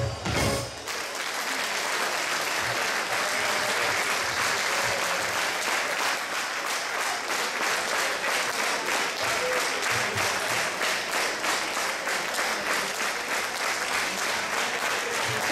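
A brass band's final chord cuts off within the first second, then the audience applauds.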